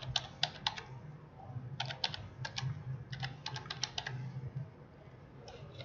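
Computer keyboard keys tapped in quick bursts of keystrokes as a string of digits is typed in, three runs of typing with short pauses between, falling quiet over the last second or so.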